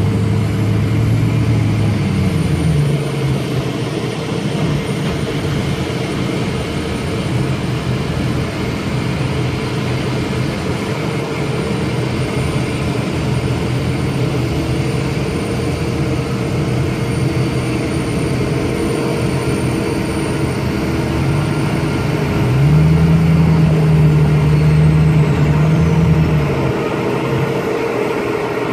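Boeing 787 airliner's jet engines running on the ramp: a steady roar with a thin high whine. A deeper engine drone swells near the start and again about two-thirds of the way through.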